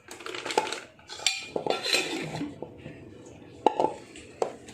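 A metal spoon clinking and scraping against a dish, with a string of sharp clinks that ring briefly, as spice powder is measured out and added to the marinating chicken.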